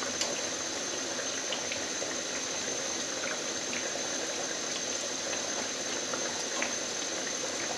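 Hot oil sizzling and bubbling steadily as potato pinwheel samosas deep-fry in a pan, with a few light clicks of the utensil as they are turned over.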